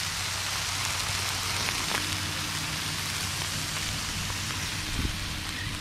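Fish fillets sizzling steadily in butter and oil on a hot flat-top griddle, seared on the second side just after flipping. A light knock near the end.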